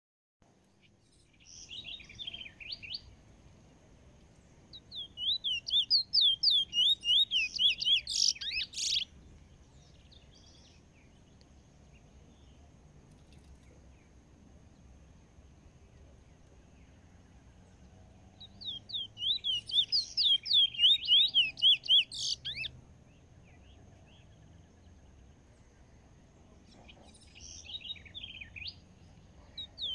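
Caged bullfinch from Trinidad singing in bouts of quick, high, repeated notes, each bout a few seconds long, with quiet pauses between. The longest and loudest bouts come about a fifth of the way in and again past the middle.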